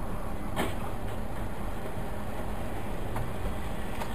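Steady road and engine noise heard from inside a moving car cruising on a highway. A sharp click comes about half a second in, and two fainter ones come near the end.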